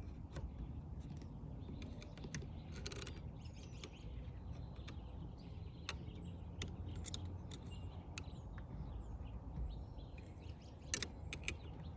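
Scattered light clicks and small rattles of parts being worked in a car's steering column, over a low steady rumble. Faint bird chirps can be heard.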